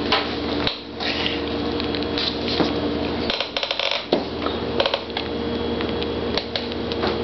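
Light clicks and taps over a steady hum, with a quick run of rapid clicks about three and a half seconds in.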